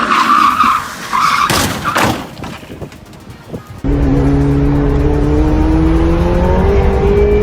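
Car tyres squealing in a skid, then a crash with two sharp impacts about a second and a half and two seconds in. After a cut, a vehicle engine runs steadily with its pitch slowly rising as it speeds up.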